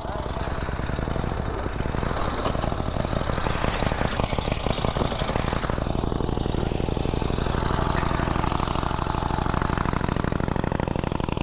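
Pre-1919 vintage motorcycle engine running after being started, chugging unevenly for the first few seconds and then settling into a steadier run about halfway through.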